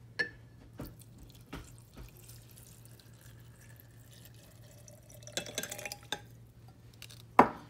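Hot water poured from a glass beaker into a glass jar holding gold-filled watch-band tops, a faint trickle with a few light glass clinks. A sharp knock of glass comes near the end.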